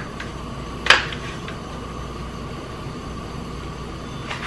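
A sharp plastic click about a second in, with a few lighter taps, as a black pepper shaker is opened and shaken over the pan, over a steady background hum.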